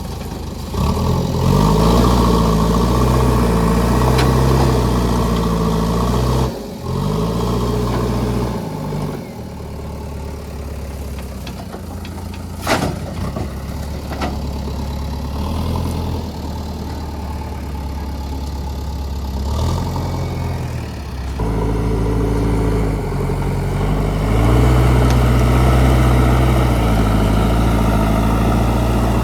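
JCB 3DX backhoe loader's diesel engine running, revving up in loud surges and dropping back to idle in the middle, as the hydraulics work under load. A single sharp knock about halfway through.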